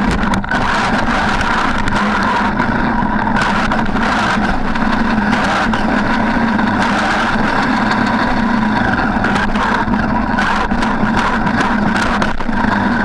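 Traxxas E-Maxx electric RC monster truck driving, its motor and gears giving a steady whine with scattered clicks and knocks from the chassis.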